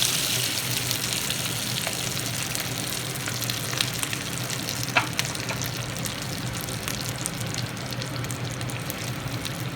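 Hot oil tempering of mustard seeds, cumin, dals, curry leaves and dried red chillies sizzling as it meets the wet ground tomato pickle mixture. The hiss is loudest at first and fades slowly, with a few sharp ticks, the clearest about five seconds in.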